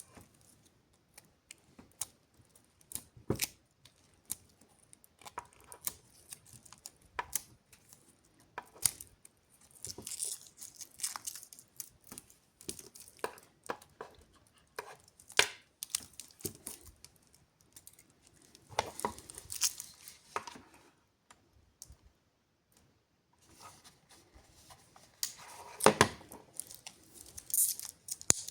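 A wristwatch and its packaging handled by hand: irregular small clicks and taps, with spells of rustling and tearing about a third of the way in, about two thirds in, and more loudly near the end.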